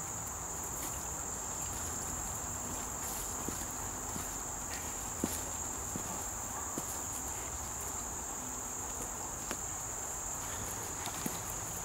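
Insects trilling steadily in one unbroken high-pitched drone, with a few faint snaps and clicks now and then.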